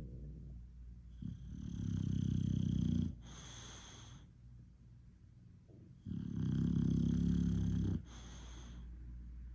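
English Bulldog snoring in its sleep: two long, low snores about five seconds apart, each followed by a shorter, quieter wheezy breath.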